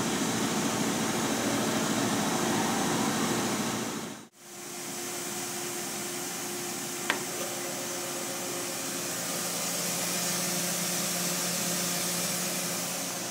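Makino S56 vertical machining center running, its high-speed spindle giving a steady whir and hiss. The sound drops out sharply about four seconds in and comes back with a different pitch. There is a short click a few seconds later.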